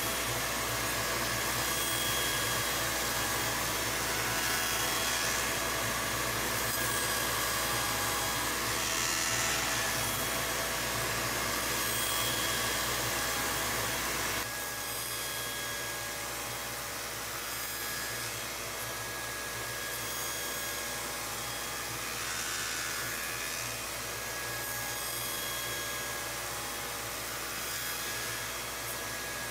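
Automatic circular-saw notching machine running with a steady whir as the blade cuts slots into a wooden workpiece. The sound drops a little in level about halfway through.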